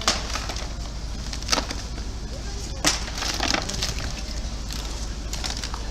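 A few sharp knocks and clatters of hard objects, irregularly spaced, over a steady low hum.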